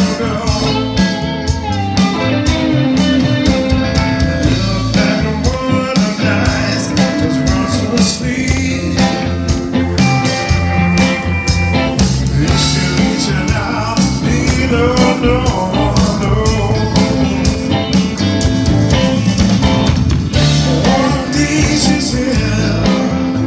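Live blues-rock band playing loudly: electric guitars, bass guitar and drums.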